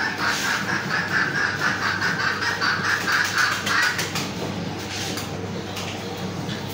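A cow being milked by hand: rapid, rhythmic squirts of milk into a steel bucket of frothy milk, about four a second, louder for the first four seconds and fainter after.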